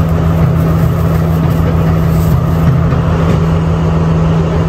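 Diesel train engine idling at the platform, a loud, steady low rumble.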